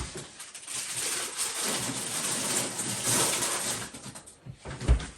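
Noodle packaging rustling and crinkling as it is handled, with a thump near the end.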